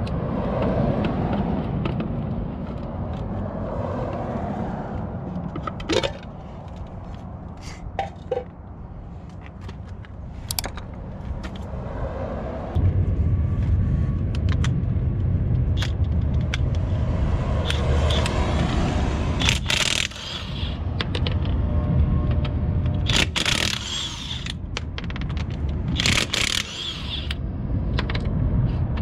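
Hand work on a car's front end as it is jacked up and a front wheel is taken off: scraping, a few sharp clicks and clanks, and short loud rattling bursts in the second half. A steady low rumble starts about halfway through and runs on.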